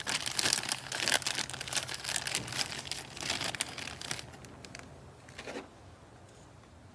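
Dense crinkling and rustling of handled wrapping material for about four seconds, dying away with one short rustle near the end, over a faint steady low hum.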